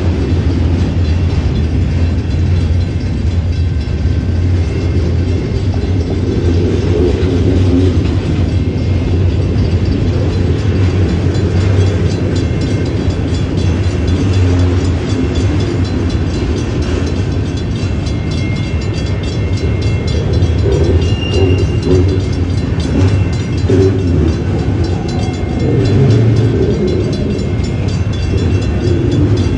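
Autorack freight train rolling past at a grade crossing: a steady low rumble of the cars' wheels on the rails. An electronic crossing bell rings in a rapid, even rhythm over it.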